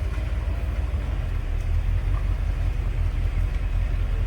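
Off-road vehicle's engine running at low speed, a steady low pulsing sound that grows a little stronger about a second and a half in.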